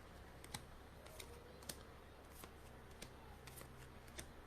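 Faint, scattered clicks and light snaps of trading cards being handled and flicked through, over a low steady hum.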